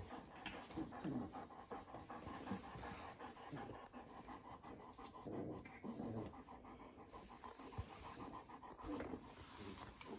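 A German Shepherd panting steadily, with a few short louder sounds breaking in now and then.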